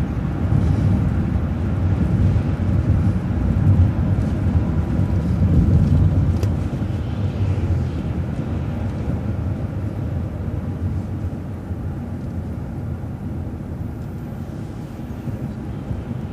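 Engine and road noise of a city transit bus on the move, a steady low rumble that eases off gradually after about six seconds.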